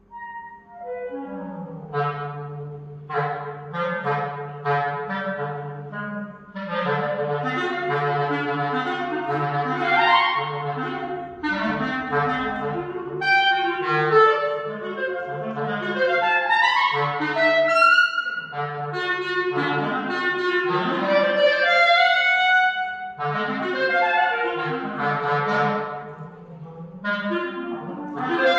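Solo clarinet coming in after a silence and playing a fast, virtuosic passage of quick runs and leaps in many short notes.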